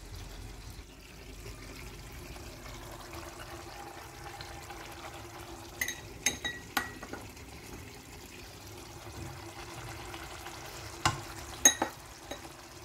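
A pot of chicken and potatoes simmering in sauce, a steady low sizzle and bubbling. A few sharp, ringing clinks come about six seconds in and again near the end, the loudest near the end.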